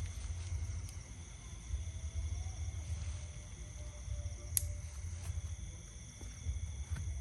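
Wind buffeting the microphone in an uneven low rumble, with a steady high-pitched whine over it and a single sharp click about four and a half seconds in.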